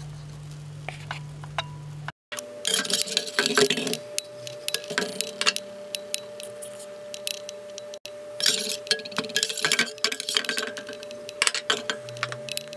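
Cooking utensils clinking, knocking and scraping against a stainless-steel frying pan in quick, irregular strokes while pancakes are cooked and turned. A steady low hum runs under the first two seconds.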